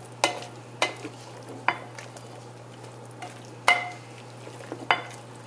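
Wooden spoon stirring chickpeas and eggplant in a slow-cooker crock, knocking sharply against the crock five times at uneven intervals, over a steady low hum.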